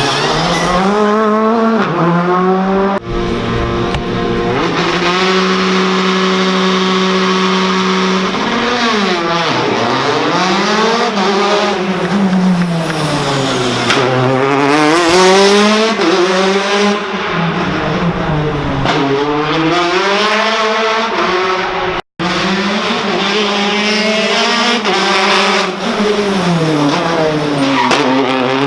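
Rally car engines revving hard, the pitch climbing and falling again and again through the gears. Early on one engine holds steady revs for a few seconds.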